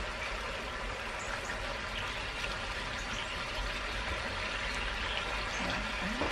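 The contents of a hot wok (vegetables in escabeche sauce) sizzle and bubble with a steady hiss, with a few faint ticks.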